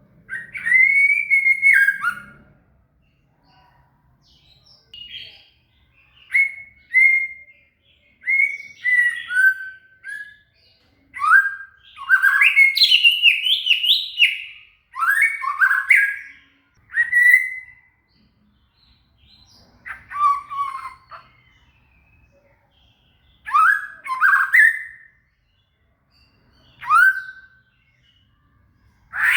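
White-rumped shama (murai batu) singing: short, rich whistled phrases with sweeping and slurred notes, separated by brief pauses. The song carries imitated cililin phrases, the kind of recording played to make a caged songbird bring out its learned fill-ins.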